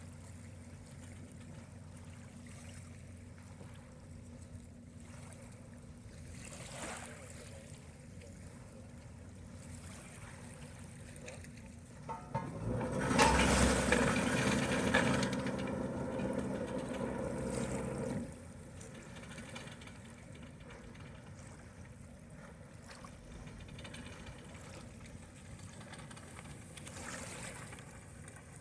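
A yacht's motor running low and steady, then a much louder humming burst lasting about six seconds that cuts off sharply, as the boat manoeuvres to dock.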